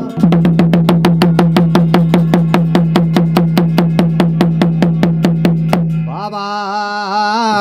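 Jagar accompaniment: rapid, even percussion strokes, about six or seven a second, over a steady low drone. The strokes stop about six seconds in and a man's voice starts singing the next line of the chant.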